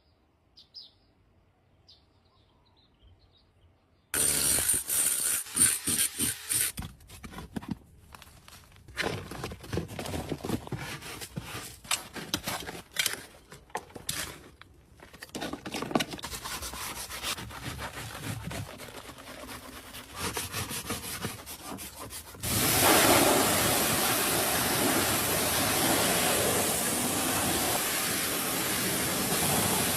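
Repeated rubbing and scrubbing strokes on a surface, starting a few seconds in, then a steady hiss of spraying water takes over about three-quarters of the way through and is the loudest part.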